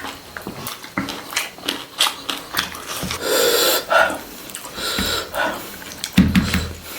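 Close-miked eating of chicken: wet chewing, lip smacks and slurps in quick irregular bursts.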